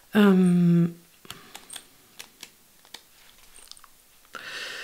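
A woman's short hummed hesitation sound, held at one pitch for under a second, followed by a few faint, scattered clicks.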